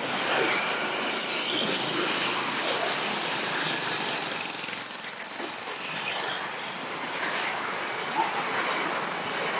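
Road traffic passing close by: motorcycle engines and car tyres on the road, a steady mix of motor and tyre noise.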